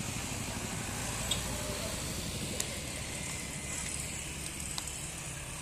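Distant Airbus A350 jet engines running steadily at low thrust as the airliner taxis, a constant rumble and hiss with a few faint clicks.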